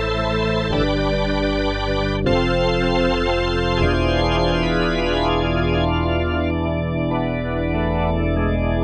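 Korg N364 synthesizer playing one of its preset patches: sustained keyboard chords with a deep bass, each held for a second or so before moving to the next.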